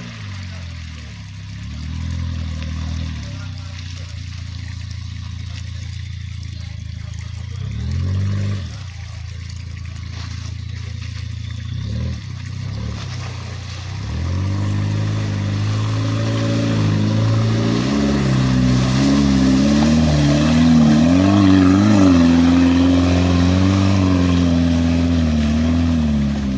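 Land Rover Freelander's engine under load, climbing a muddy, rutted off-road track. Two short throttle blips in the first half, then it grows louder as it comes close, revs rising and falling repeatedly as the driver works the throttle through the ruts.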